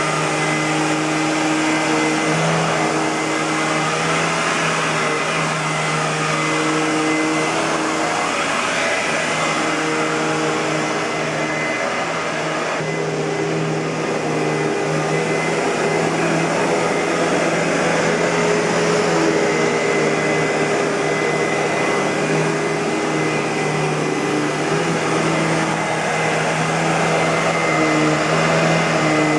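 2006 Hoover WindTunnel Bagless Twin Chamber (U5753-900) upright vacuum cleaner running steadily, a motor hum and rush of air with a thin high whine on top.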